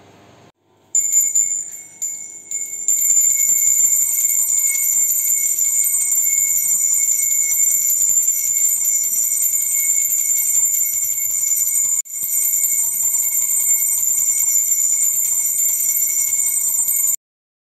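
Puja hand bell rung continuously, a steady, loud, high ringing that starts about a second in, breaks off briefly about two-thirds of the way through and stops abruptly near the end.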